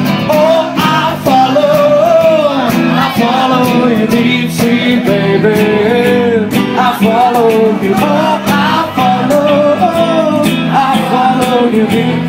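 Live band playing: guitars, bass and cajon keeping a steady beat, with a sliding sung vocal line over the top.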